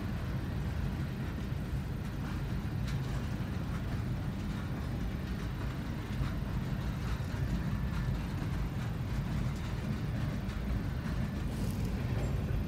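Freight train of covered hopper cars rolling past at a grade crossing, heard from inside a car as a steady low rumble with a few faint clicks.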